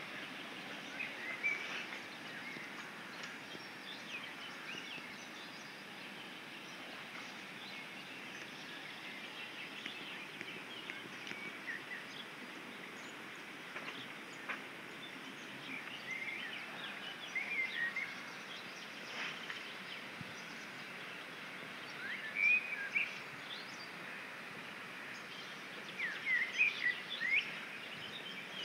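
Outdoor ambience of songbirds chirping and calling in short scattered phrases over a steady background hiss, with louder clusters of calls about a second and a half in, past the middle and near the end.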